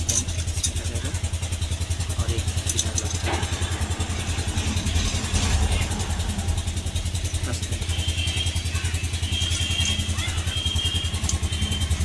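A steady low engine or motor hum with a fast, even pulse, with a few light metal clicks from clutch parts and tools being handled.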